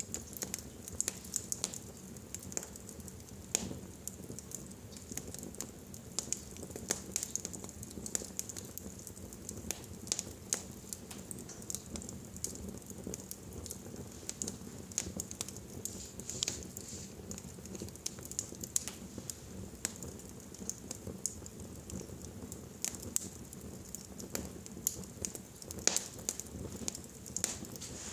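Fire crackling in a fireplace: irregular sharp pops and snaps over a steady low background of the burning fire.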